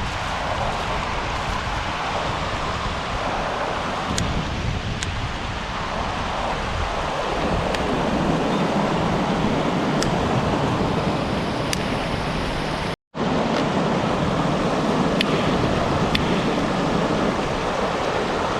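River water rushing steadily, with a few faint clicks. The sound drops out for an instant about thirteen seconds in.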